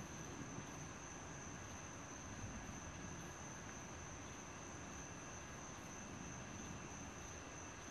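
Night insects chirring in a steady, high-pitched chorus over a faint, even hiss, with no thunder.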